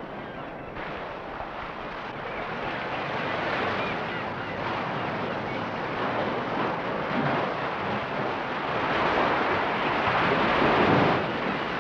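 Rushing water of surf and a stream tumbling over rocks, a steady rush that grows louder through most of the stretch and drops back near the end.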